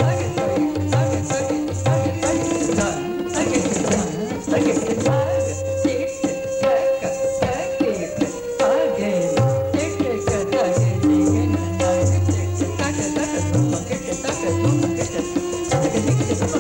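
Tabla accompanying a Kathak paran, with dense strokes and deep bass notes. A repeating melodic line runs under it, and ankle bells jingle from the dancer's footwork.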